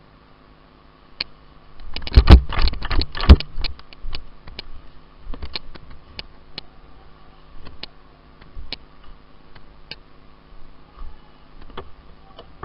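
Airsoft gunfire: a rapid burst of sharp cracks about two seconds in, lasting over a second, followed by scattered single shots every second or so.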